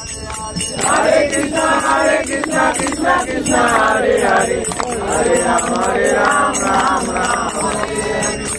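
A group of voices singing a devotional chant (kirtan), with small brass hand cymbals (kartals) striking a fast, steady beat and hands clapping along. The singing comes in about a second in and drops away near the end while the cymbals keep going.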